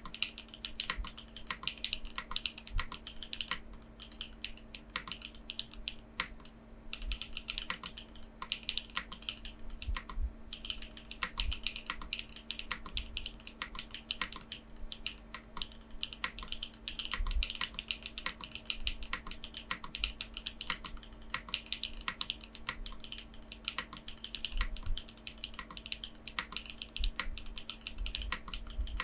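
Typing on a Haven TKL mechanical keyboard with Gateron Silyworks SLAY Type R switches and PBTFans Pyga PBT keycaps: fast, continuous keystrokes in runs, with a brief pause about seven seconds in.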